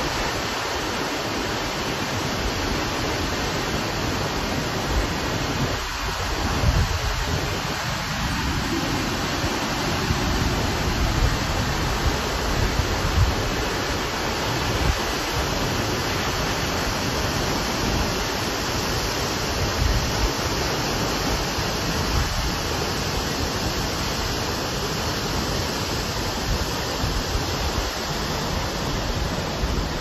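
Steinsdalsfossen waterfall rushing steadily as its water crashes onto the rocks at its foot, with an uneven low rumble under the hiss.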